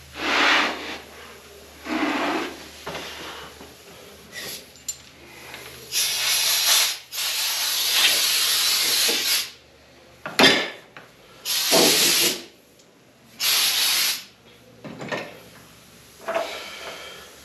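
Compressed air hissing in about six separate blasts, each from half a second to about two seconds long, with a few sharp knocks of metal flask parts in between.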